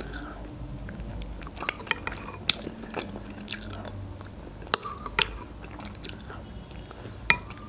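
Close-miked eating of borscht from a spoon: chewing with many small wet clicks and smacks scattered throughout.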